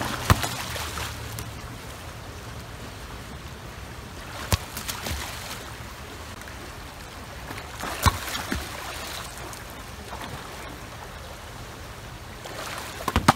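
Pool water splashing and sloshing as a swimmer moves through it, with a few sharp smacks spaced several seconds apart.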